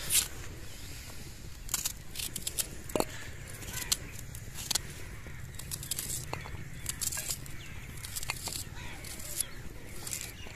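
Knife cutting a red onion held in the hand: an irregular string of short, crisp clicks and scrapes.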